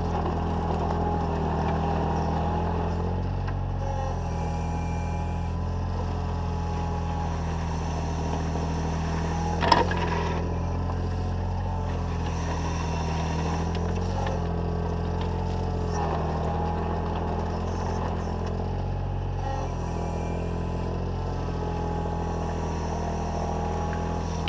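Takeuchi TB014 mini digger's diesel engine running steadily under load while the arm and bucket work, with a whine from the hydraulics that shifts in pitch as the controls move. A single sharp clank of the bucket comes about ten seconds in.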